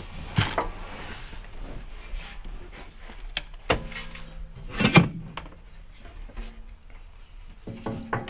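Scattered knocks and clunks as a police-car rear partition with a tubular frame is manoeuvred into the back seat area and bumps against the car's interior. The loudest knock comes about five seconds in.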